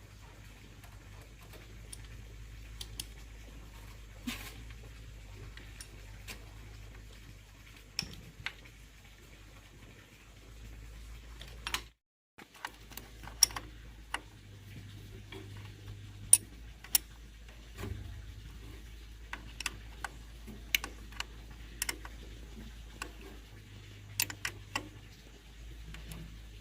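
Scattered light clicks and taps from hand tools and small metal parts being handled, over a low steady hum. The sound drops out briefly about halfway through.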